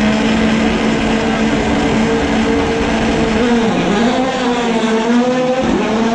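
Rally car engine running hard at steady high revs, its pitch dipping twice and climbing back as the driver lifts and shifts.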